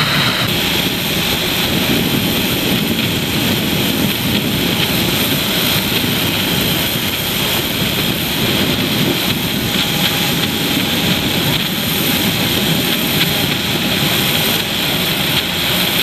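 Jet airliner engines running at idle on the apron: a steady, even jet noise with no change in pitch.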